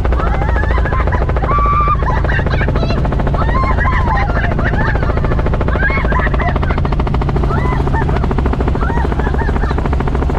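Robinson R44 Raven I helicopter heard from inside the cabin in flight: the steady, loud drone of its six-cylinder Lycoming piston engine and rotors, with a rapid, even pulsing. Voices come through faintly over the noise at times.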